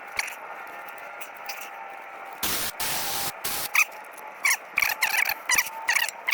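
Short blasts of compressed air from an air blow gun, a hiss lasting about a second that starts two and a half seconds in, then a shorter one. Short high-pitched metallic squeaks come and go throughout.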